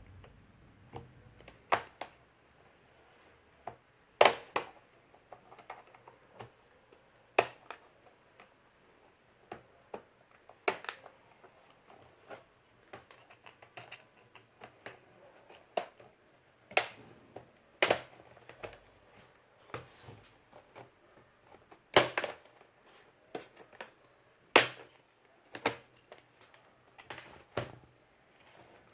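Irregular sharp clicks and taps of computer hardware being handled while an M.2 SSD is fitted, with a few louder knocks, the loudest about 4, 22 and 24 seconds in.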